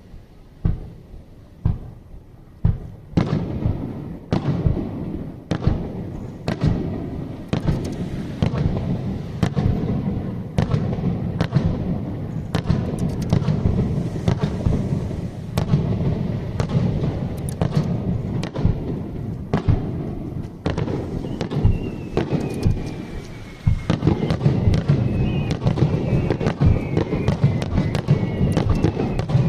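Fireworks display: a few separate shell bursts, then from about three seconds in a dense, continuous barrage of bangs and crackling. From about twenty seconds in, falling whistles sound among the bursts.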